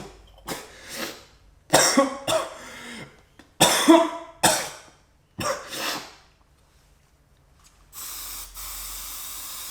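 A person coughing hard several times in a row, as if from dust. After a short pause, a spray can hisses steadily near the end.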